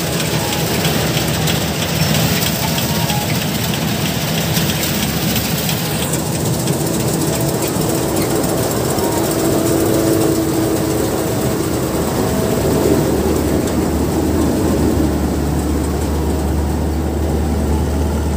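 Combine harvester running while cutting paddy rice: a steady, loud engine drone with fast clattering from the cutting header and reel, the clattering easing about six seconds in.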